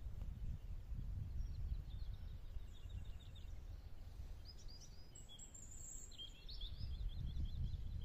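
Wind buffeting the microphone as an uneven low rumble, with small birds chirping in the background and a quick run of high chirps near the end.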